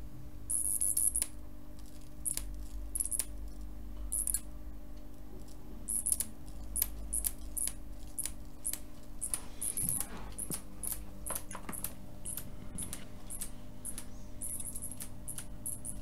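Jacob's ladder arc crackling with irregular sharp snaps, over a steady low hum from the transformer.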